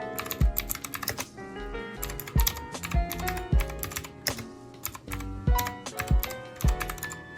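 Fast typing on an RK Royal Kludge RK61 60% mechanical keyboard: a rapid, uneven run of key clicks during a typing test. Background music with a steady low beat plays underneath.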